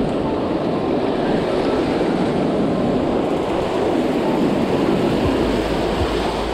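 Shallow surf washing and foaming in the shallows: a steady rushing noise.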